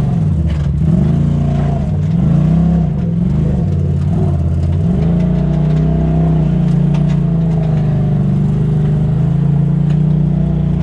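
Polaris RZR side-by-side's engine, heard from inside the cab, revving up and down four or five times with the throttle, then running at a steady pitch from about halfway through, with a few light rattles.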